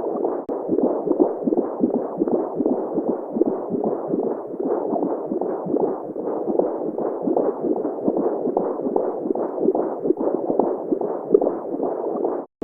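Simulated womb sound for baby sleep: a muffled whooshing noise with a rapid, steady pulsing heartbeat-like rhythm. It cuts out for an instant near the end, as at a loop point.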